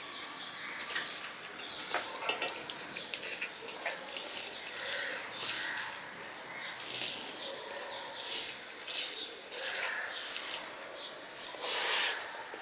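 Rice being squished and mixed by hand with bhorta (mashed vegetables), giving short wet squelching and smacking sounds every second or so, with a louder mouthful near the end.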